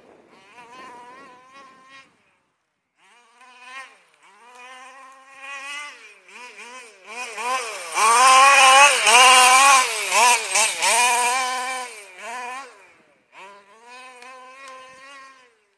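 A Losi DBXL large-scale RC buggy's 29cc Zenoah two-stroke engine revving up and down in quick throttle bursts as the car drives. It grows loud as the car passes close in the middle, then fades as it drives away.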